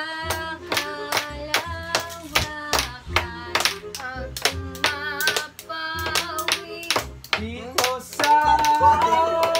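Cartoonish background music: woodwind melody over held low bass notes and a quick, even beat of sharp ticks, about three a second.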